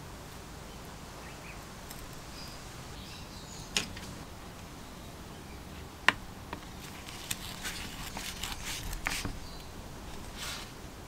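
Slotted screws being driven with a flat screwdriver into a forge blower's metal gear-housing cover. Two sharp metal clicks come about four and six seconds in, followed by a run of small scrapes and ticks as the screws are turned down.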